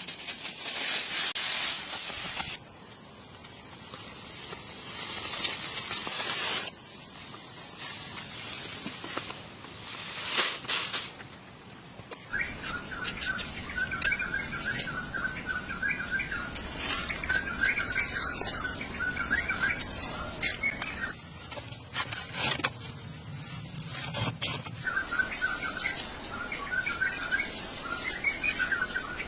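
A hissing, rustling noise that cuts in and out abruptly several times, then birds chirping repeatedly from about halfway through.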